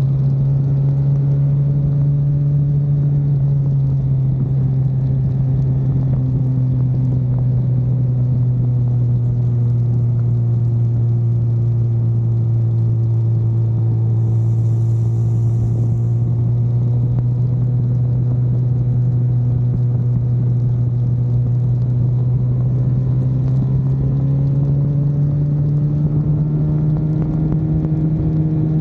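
Car engine running steadily under load at track speed, with tyre and road noise; its note eases slightly through the middle and climbs again near the end.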